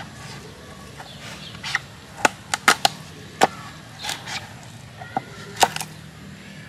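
Knife cutting through a carrot on a wooden cutting board: a series of irregular sharp knocks as the blade strikes the board, about ten in a few seconds.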